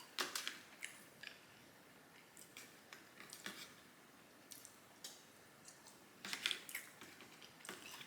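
Quiet, close-miked chewing and wet mouth smacking, in scattered short bursts of clicks.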